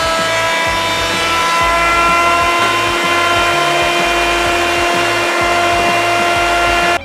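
Benchtop electric jointer running with a steady high whine while a hardwood board is fed across its cutterhead. Background music with a bass line plays underneath. The sound cuts off suddenly near the end.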